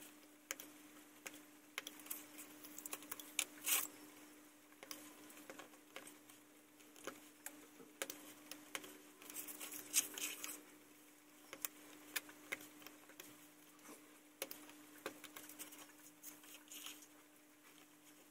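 Faint scratching and ticking of a hobby knife blade cutting small panels out of a thin sheet on a cutting mat, with light handling sounds of the sheet, over a steady low hum.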